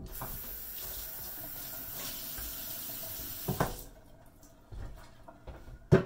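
Kitchen sink tap running steadily for nearly four seconds, with a clunk in the sink just before the water is shut off. A loud sharp knock comes near the end.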